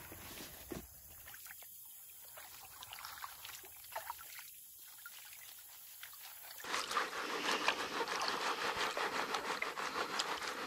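Faint rustling and clicks of gear being handled, then, about two-thirds of the way in, water sloshing and trickling as gravel is swirled and washed in plastic gold pans (a Minelab Pro-Gold) in a shallow creek.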